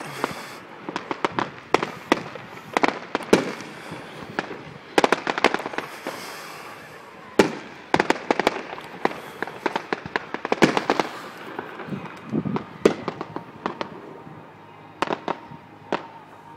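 Fireworks display: aerial shells bursting in a rapid, irregular run of bangs and crackles that thins out near the end.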